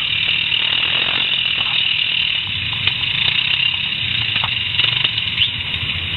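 Quad bike (ATV) engine running hard under load as it churns through deep mud, wheels spinning and throwing mud.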